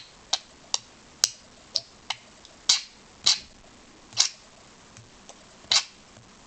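Budgerigar pecking and tapping its beak at a small toy horse figurine: about a dozen sharp, irregular clicks.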